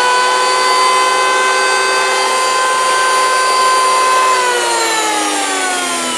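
Makita 1911B electric hand planer running free with no wood under it: a steady high whine from the motor and cutter drum. About four seconds in it is switched off and the whine falls in pitch as it coasts down.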